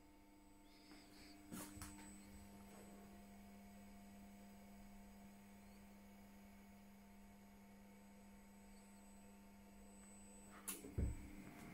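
Faint steady electrical hum from the idle CNC mill setup, with a few soft clicks about one and a half seconds in. Near the end come clicks and a dull knock as a finger presses the controller's touchscreen.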